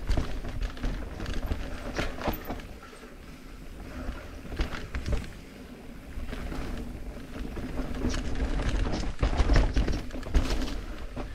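Mountain bike descending a dirt singletrack at speed: tyres rolling over dirt and roots, with a string of knocks and rattles from the bike over the bumps, over a low rumble of wind on the microphone. The knocking is thickest near the end, easing off for a moment about three seconds in and again around six seconds.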